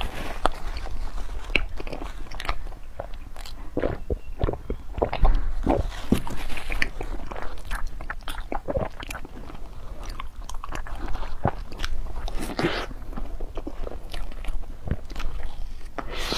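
Close-miked biting and chewing of a crunchy dessert: a run of irregular crisp crunches and mouth sounds.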